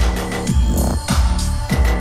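Electronic dance music from a DJ set, with a heavy bass pulse about twice a second; a sustained high synth note comes in near the end.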